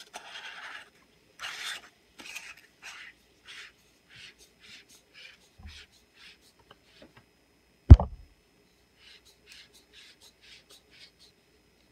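Acebeam K70 flashlight body being screwed back together: short dry rasps of the threads turning, about two a second, growing fainter after the first few seconds. One sharp thump about eight seconds in.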